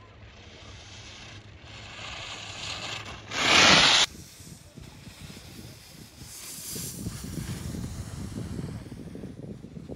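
Skis hissing and scraping over groomed snow, with a loud, harsh scrape about three and a half seconds in that cuts off abruptly. Low wind rumble on the microphone later on.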